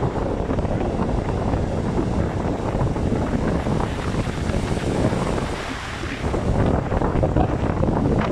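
Stormy Baltic Sea surf breaking and rushing on the shore, with strong wind buffeting the microphone.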